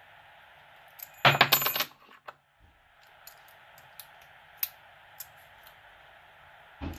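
A brief burst of metallic jingling and rattling about a second in, like keys clinking together as a key is worked in a lock, followed by a few scattered small metal clicks.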